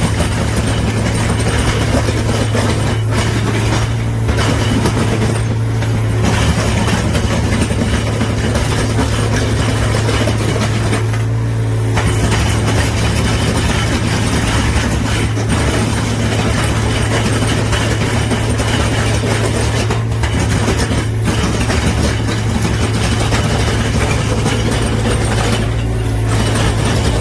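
Excavator with a surface-planer attachment grinding concrete: a steady heavy engine drone under a continuous rough grinding noise, which eases briefly about eleven seconds in.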